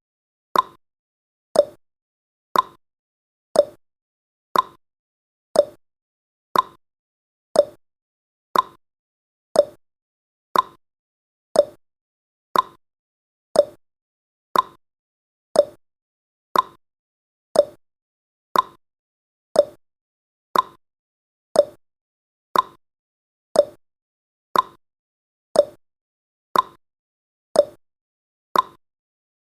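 Countdown timer's ticking sound effect: one short, sharp tick every second, perfectly regular.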